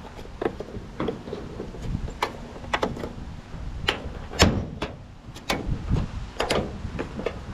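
Plastic roof cladding on a 2008 Honda Element being pried off, with about a dozen irregular sharp clicks and knocks as its retaining clips pop loose and the plastic panel is handled, the loudest about halfway through.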